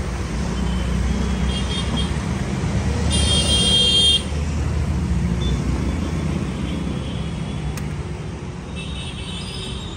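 Steady road traffic rumble with a vehicle horn honking for about a second around three seconds in, cutting off sharply; fainter horn toots just before and near the end.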